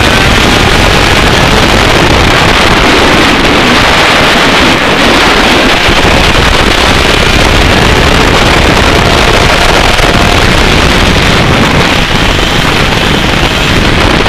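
125cc two-stroke kart engine running hard on track, very loud and heavily overdriven on the onboard microphone, with wind buffeting over it. The engine pitch bends with the throttle near the start and again near the end.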